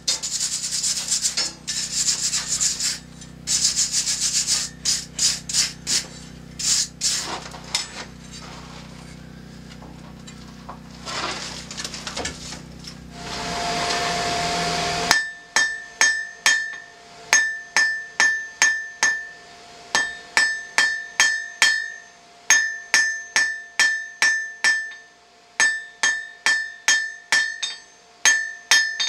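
For the first half, scraping and rubbing noises over a steady low hum. About halfway, the hum stops, and a hand hammer strikes hot steel on the anvil, about two blows a second in runs broken by short pauses, each blow ringing with a clear metallic tone.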